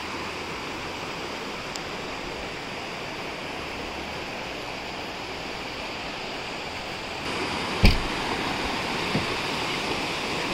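Mountain stream rushing over rocks and boulders, a steady rush that gets a little louder about seven seconds in. Just after that, a single sharp thump.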